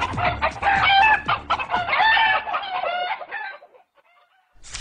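A coop full of chickens clucking, many short overlapping calls that fade away after about three and a half seconds. A brief burst of noise follows near the end.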